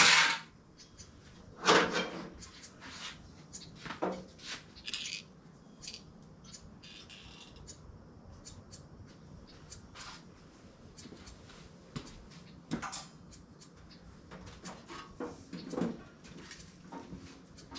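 Scattered clunks and clatters of metal tools and parts being handled at a workbench, the two loudest in the first two seconds.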